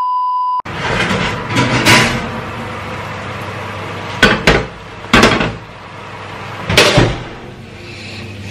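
A steady test-card beep cuts off just after the start. Then, over a low steady hum, a series of knocks and clunks as a hot ceramic baking dish is handled with an oven glove and set down on a gas hob's iron grate.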